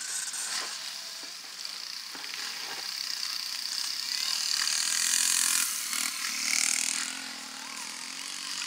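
Dirt-bike engine running on a snow enduro course, a rasping motor sound that grows louder toward the middle and then fades.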